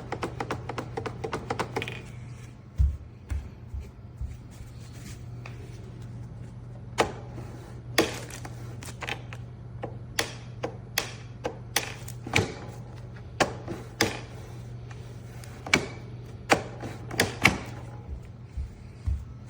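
A rapid run of light clicks, then scattered sharp clicks and knocks about once a second, over a steady low hum.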